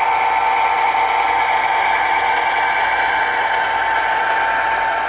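Sound-equipped HO scale diesel locomotive's recorded engine sound, playing through its small onboard speaker and running steadily with a constant hum.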